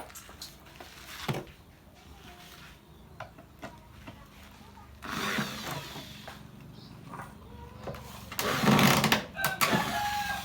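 Scattered clicks and knocks, a noisy rasp about five seconds in and a loud, short rasping burst about eight and a half seconds in, followed near the end by a rooster crowing.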